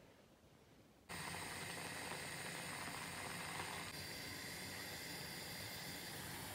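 Steady hiss from a stovetop moka pot brewing coffee on a gas burner, starting abruptly about a second in.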